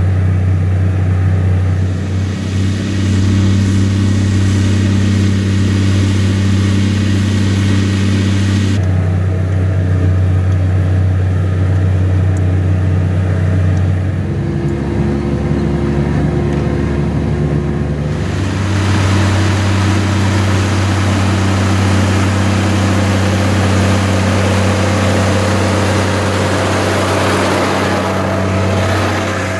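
New Holland T7060's six-cylinder turbo-diesel engine running steadily under load while pulling a mounted plough. Its low hum drops lower in pitch for a few seconds about halfway through, then returns.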